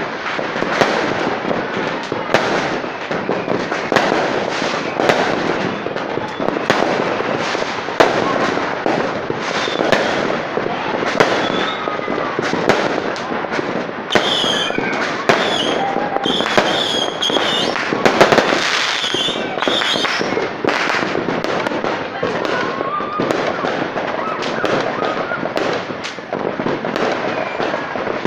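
Fireworks display: a dense, irregular run of bangs and crackling from bursting aerial shells. Wavering high whistling tones join in about halfway through.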